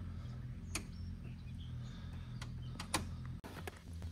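Plastic oil funnel being worked into the engine's oil filler neck, knocking against the plastic engine cover in a few short sharp clacks over a steady low hum.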